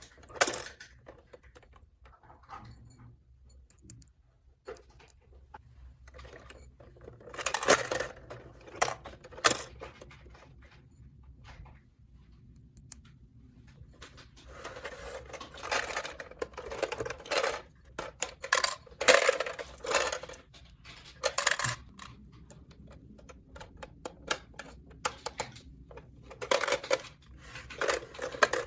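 Small hard plastic toy pieces clicking and clattering as they are handled, in several bursts with quiet gaps between.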